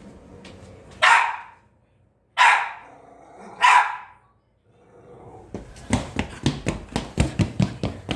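A puppy barking: three loud, harsh barks about a second apart, then a fast run of short, sharp sounds, about five a second, over the last few seconds.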